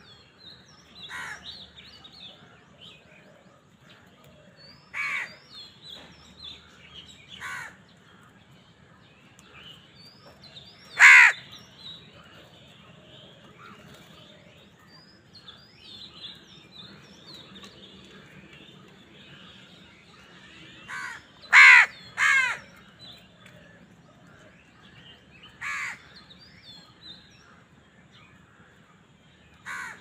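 House crows cawing: short harsh single caws every few seconds, the loudest about a third of the way in and a quick run of three about two-thirds through, over faint chirping of small birds.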